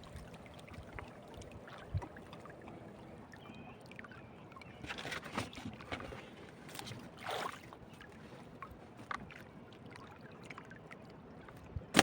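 Water lapping and splashing against a small boat, with scattered knocks and clicks and brief splashes about five and seven seconds in.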